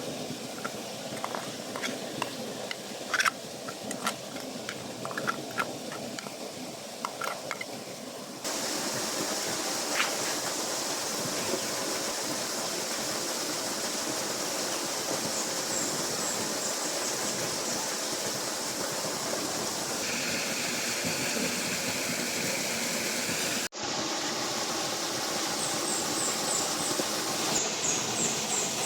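Steady rushing water, with short runs of high chirps over it twice. The first few seconds are a quieter hiss with scattered light clicks and taps, cut off abruptly when the water sound comes in.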